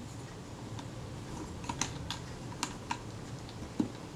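Small, sharp clicks and taps of metal as fingers handle a Kodak Retina IIIC camera and work at its lens front. The clicks are scattered and irregular, most in the second half.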